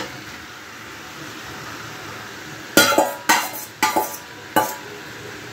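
Fried potato chunks tipped into a steel kadai of frying chicken masala, with a steady sizzle. In the second half come about four sharp metal clatters against the pan.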